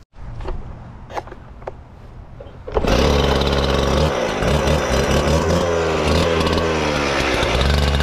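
A few light knocks, then a Stihl TS 420 two-stroke concrete cut-off saw starts up about three seconds in and runs loudly. Its engine speed rises and falls for a few seconds before settling.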